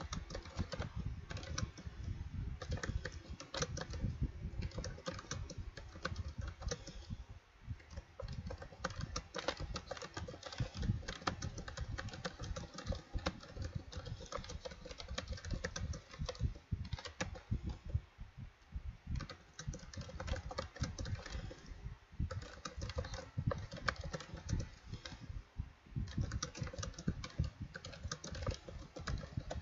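Typing on a computer keyboard: quick, irregular keystrokes that go on steadily, with a few short pauses.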